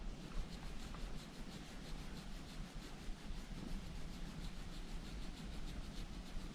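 Rapid back-and-forth scrubbing on a gun part during cleaning, a steady run of strokes about five a second.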